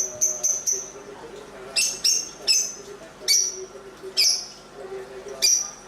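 Lovebird chirping: a quick run of short, high chirps, about four a second, that stops within the first second. About two seconds in come louder, sharp, shrill chirps, spaced roughly half a second to a second apart.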